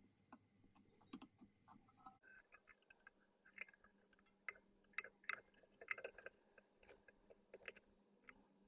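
Faint, irregular clicks and light taps of small hand work while dressing a treble hook with thread and materials.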